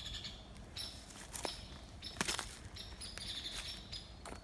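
Small birds chirping in short, high, repeated notes, with two sharp clicks about a second and a half and two seconds in.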